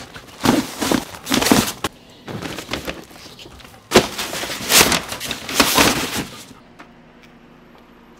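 Camping gear being handled and packed: padded fabric bags rustling and knocking in a series of short, noisy bursts that stop about six and a half seconds in.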